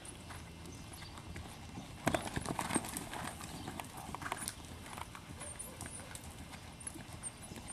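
Hoofbeats of a ridden horse moving at canter and trot in a sand arena, with a louder cluster of hoof strikes about two seconds in.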